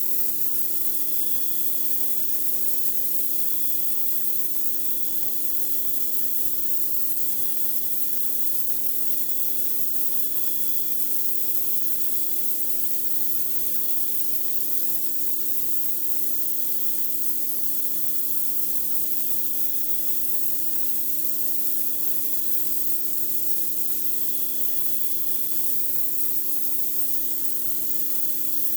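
Pressure washer blasting water onto a concrete driveway: a steady, loud hiss of spray with the washer's motor running at a steady hum underneath.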